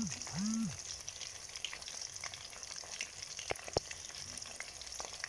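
Chicken pieces deep-frying in hot oil: a steady sizzle with scattered crackles and two sharper pops past halfway. Two short low hums sound right at the start.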